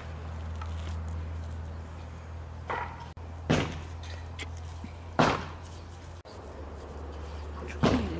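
Hands patting and pressing wet mashed potato dough around shredded chicken, three sharp wet slaps about two seconds apart, over a steady low rumble.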